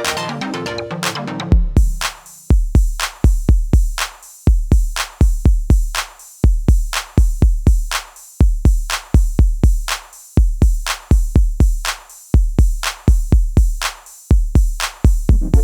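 Background electronic music: a busy melodic passage gives way, about a second and a half in, to a steady beat of deep drum-machine kicks with sharp clicks over them.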